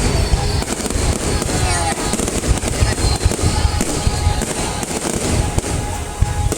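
Many fireworks going off at once: a dense, unbroken crackle of rapid overlapping pops and bangs.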